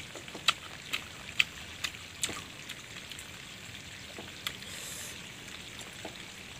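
Crisp, irregular crunches of a person chewing young kedondong (ambarella) fruit, several close together at first and sparser later, over a faint steady hiss.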